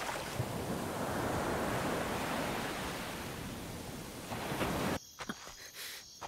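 Surf washing onto a rocky shore: a steady rushing wash that swells and slowly eases. About five seconds in it cuts off abruptly to a much quieter background with a few faint clicks.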